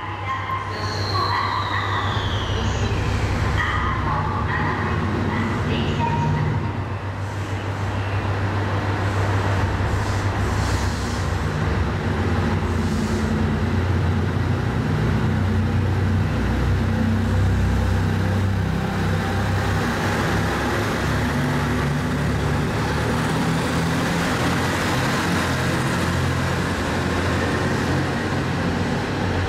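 JR Shikoku 2700 series diesel multiple unit pulling away from the station, its diesel engines working hard as it accelerates, the engine note climbing in steps. A short high tone falls in pitch a second or two in.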